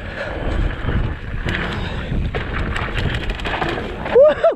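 Mountain bike riding down a rocky dirt trail: wind noise on the camera microphone over the rumble of tyres on dirt, with the bike rattling and clicking over loose rocks. Near the end a short, loud pitched sound rises and falls twice.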